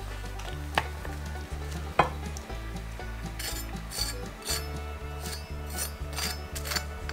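A chef's knife crunching down through the crispy, cornflour-coated skin of a deep-fried whole chicken, heard as a run of short crackles in the second half. Before that come two sharp knocks as the chicken is set down on a wooden cutting board. Background music plays underneath.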